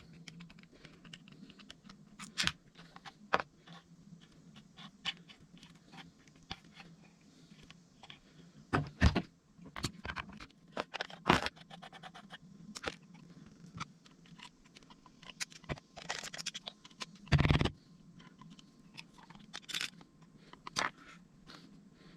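Irregular clicks, scrapes and knocks of a boat's deck shower tap being dismantled to find a blockage in the hot water side, with a few louder knocks in the second half.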